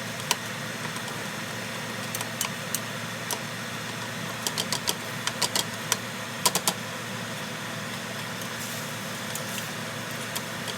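Ground beef and onion frying in an oiled pan: a steady sizzle with scattered clusters of sharp clicks and pops.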